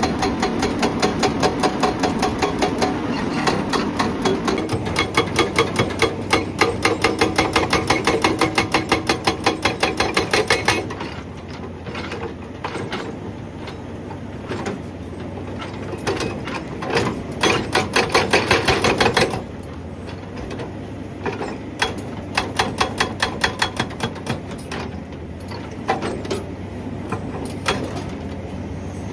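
Hydraulic breaker on a Hyundai excavator hammering rock in rapid, evenly spaced blows, several a second, over the excavator's steady engine. The hammering is loudest and continuous for the first ten seconds or so, then runs quieter and in stops and starts, with another loud run about two-thirds of the way through.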